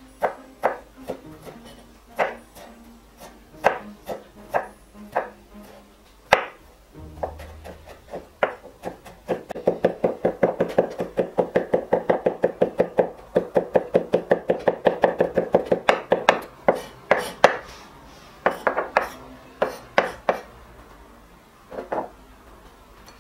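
Chef's knife chopping fresh ginger on a wooden cutting board. It starts as scattered single chops, then runs into rapid, even chopping at about five strokes a second, then slows back to a few separate chops.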